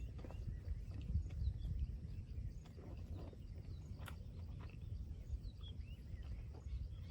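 Close-up eating sounds: chewing and wet mouth clicks and smacks of someone eating pork curry with rice by hand, over a steady low background rumble.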